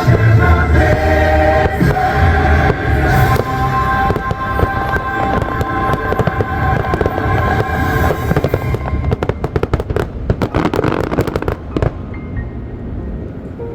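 Fireworks show music with held chords playing loud, then in the second half a rapid barrage of firework bangs and crackles lasting about three seconds, after which the sound drops lower.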